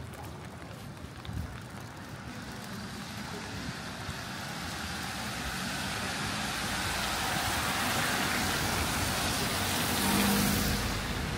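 A road vehicle driving past: tyre and engine noise grows steadily louder over several seconds, loudest near the end, where a low engine hum comes through.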